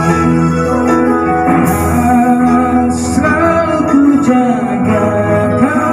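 A man singing through an Ashley Pro One wireless handheld microphone, holding long notes over recorded backing music.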